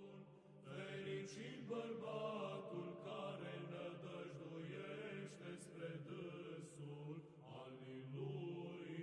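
Sung chant, voices holding a steady low note while a melody moves above it. It fades in about half a second in and runs as a quiet musical interlude.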